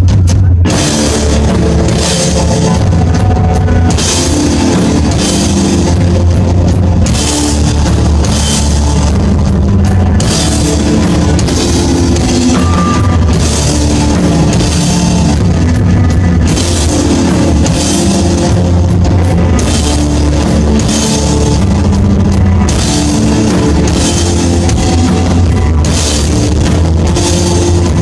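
Desert rock band playing live: loud, steady instrumental rock with drum kit, crashing cymbals, a heavy bass line and electric guitar.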